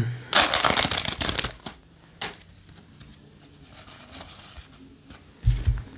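Yu-Gi-Oh! trading cards being flipped through and slid against one another in the hands: a quick run of card slides and flicks starting about half a second in, a couple of single flicks after it, then softer handling. There is a brief low bump near the end.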